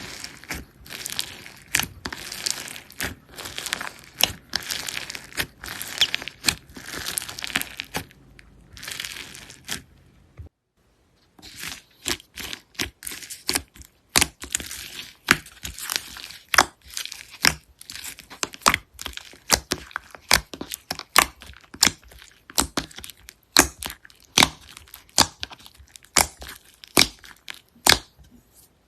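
Hands working slime close to the microphone: a dense crackling and squishing, then after a short break a rapid run of sharp, distinct pops and clicks, several a second.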